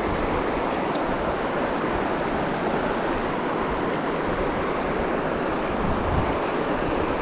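River water running over rocks in a shallow riffle: a steady, even rushing.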